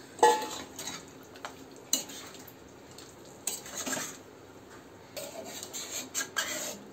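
Metal spatula stirring mutton curry in a kadai just after water has been added, with a few irregular clinks and scrapes of the spatula against the pan.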